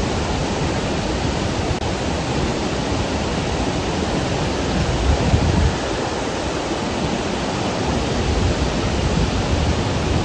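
Steady rush and low rumble of floodwater pouring down a dam's stepped spillway.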